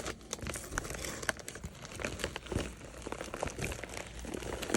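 Packaging crinkling and rustling as a mail-order package is opened and its contents unwrapped by hand, a dense, irregular crackle.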